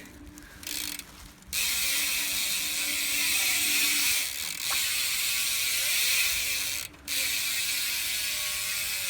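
Colony Wasp cassette hub on a BMX rear wheel, its freewheel ratchet buzzing loudly as the wheel spins. It runs in two stretches: the first starts about a second and a half in, and the second follows a brief break about seven seconds in.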